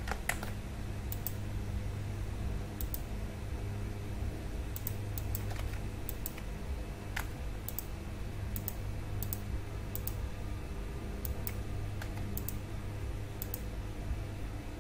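Irregular, scattered clicks of a computer mouse and keyboard keys being pressed, over a steady low hum.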